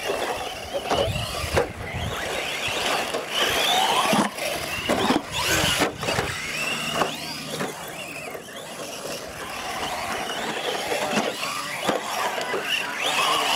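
Radio-controlled UTV trucks racing together on a dirt track, their motors whining up and down in pitch as they speed up and slow down. Several sharp knocks come through as trucks land jumps and bump each other.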